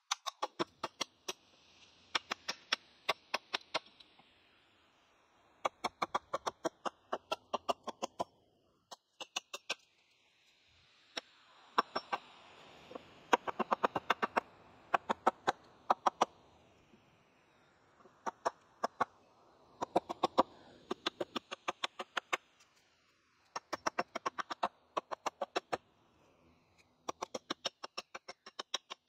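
Hatchet chopping into the end of a peeled wooden pole, hewing it to shape: quick runs of sharp chops, about five a second, broken by short pauses.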